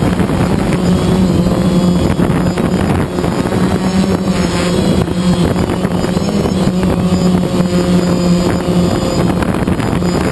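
Small camera drone in flight: its electric motors and propellers buzz steadily, the pitch of the hum wavering slightly as it manoeuvres, over a rush of air on the microphone.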